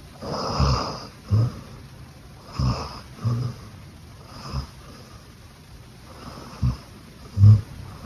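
Beagle snoring in her sleep: short low snores, mostly in pairs of breathing in and out, about every two to three seconds, the loudest near the end.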